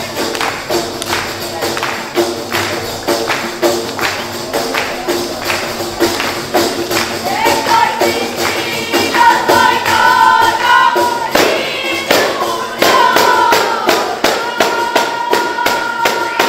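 A group of women singing together to a steady beat of Albanian def frame drums with jingles. The singing comes in louder about halfway through.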